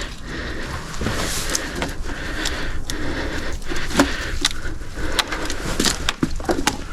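Rustling and crackling of swamp brush and sticks being stepped on and pushed through, with many scattered sharp snaps and clicks.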